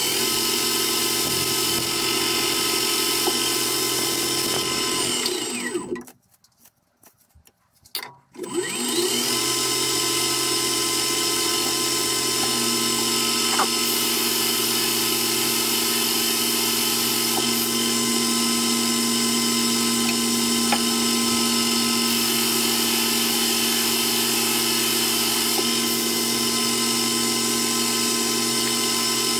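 Metal lathe running steadily with its motor and gear whine while an indexable carbide tool turns a steel part. The sound drops out for about two seconds a fifth of the way in, then resumes.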